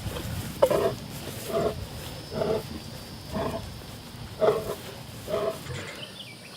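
A liger's grunting calls, six short low grunts about a second apart in a steady rhythm: the lion-like 'talking' it does as it walks along.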